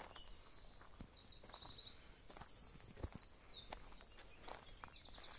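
A small songbird singing: fast high trills and quick runs of falling notes, one phrase after another, with a few soft knocks underneath.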